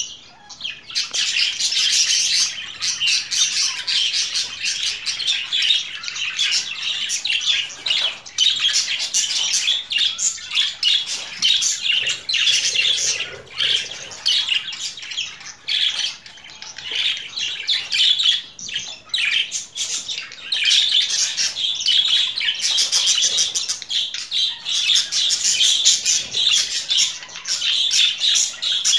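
Budgerigars warbling and chattering: a dense run of fast, high chirps and squawks that starts about a second in and goes on with only brief pauses.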